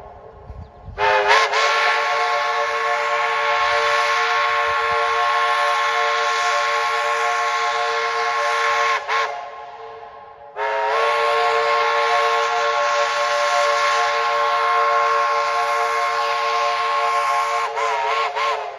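Steam locomotive's chime whistle blowing two long blasts of about eight seconds each, with a short gap between them. Each blast slides up in pitch as the whistle opens and wavers as it closes.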